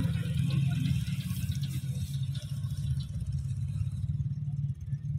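Mahindra Thar's engine running steadily under load as the SUV drives through loose sand, a low pulsing engine note with a hiss over it. The hiss drops away about four seconds in, and the engine note fades near the end.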